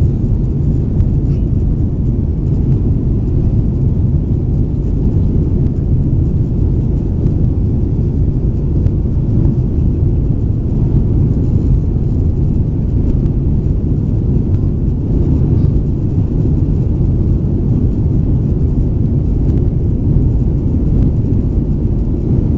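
Steady low roar inside the cabin of a Boeing 737-900ER in its climb after takeoff: the CFM56-7B engines and the airflow past the fuselage.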